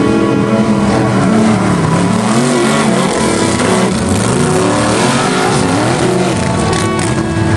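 Off-road 4x4 truck engine revving hard, its pitch swinging up and down repeatedly as the throttle is worked on a hill climb.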